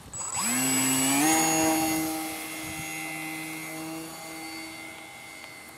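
Electric RC plane's brushless outrunner motor (Turnigy C2830, 1100 kV) and 9x5 propeller throttled up for a hand launch: a whine that rises sharply in pitch, steps up once more about a second in, then holds steady and fades as the plane flies away.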